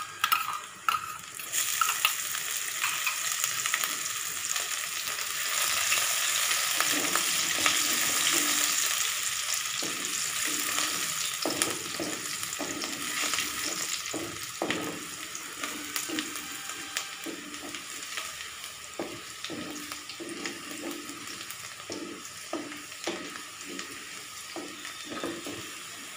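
Chopped green chillies and ginger sizzling in hot oil in a kadhai, stirred with a wooden spatula that scrapes the pan in short strokes. The sizzle swells a couple of seconds in as the chillies hit the oil, then slowly dies down.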